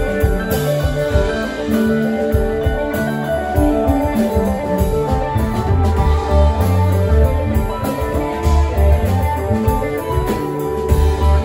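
Live rock band playing an instrumental jam: electric guitar, electric bass, drum kit and keyboard playing together, with no vocals.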